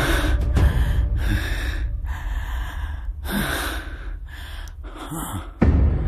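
A person breathing hard in gasps, about one heavy breath a second.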